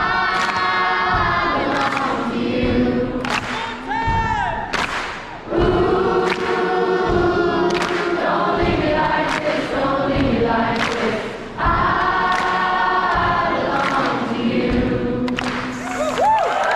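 Live concert music: many voices singing over an amplified band with drum hits, with crowd noise mixed in.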